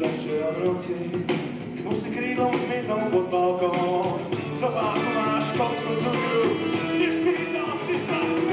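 Live rock band playing, with a saxophone carrying a melody over electric bass guitar and drums.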